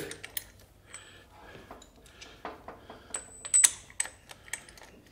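Scattered light metallic clicks and clinks of a ratchet wrench and hand tools at the front of the engine as the crankshaft is turned by hand to find top dead center on number one cylinder. The sharpest click comes a little past halfway.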